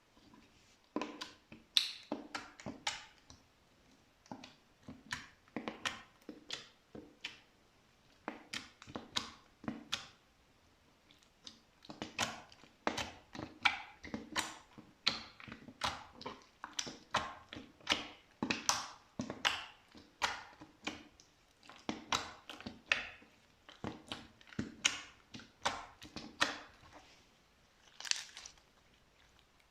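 Slime being squeezed and pressed by hand, making many short sticky clicks and pops in irregular clusters with brief pauses between them.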